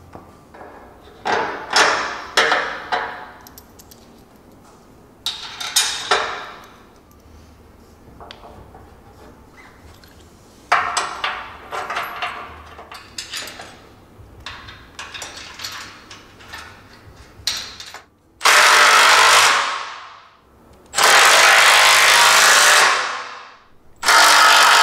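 Scattered metal clanks and knocks of suspension parts and hand tools, then a cordless power tool runs in three loud bursts of about two seconds each near the end, driving the suspension bolts.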